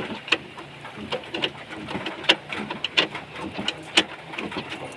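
Irregular sharp clicks and knocks, the loudest about once a second, with a pigeon or dove cooing low in the background.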